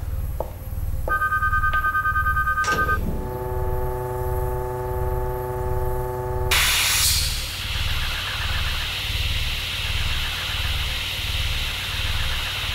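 Sci-fi sound effects of a ceiling-mounted automatic security gun unit powering up, over a low pulsing throb. A high electronic beeping begins about a second in and gives way to a steady chord of electronic tones, then about six seconds in a sudden loud hiss starts and carries on.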